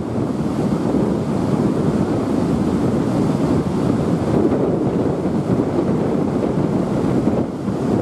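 Steady rushing of river water pouring over a low concrete weir, mixed with wind noise on the microphone.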